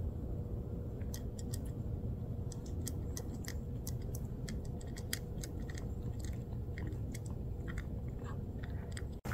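A cat crunching dry kibble from a bowl, a quick irregular run of small crisp crunches starting about a second in, over a low steady background rumble.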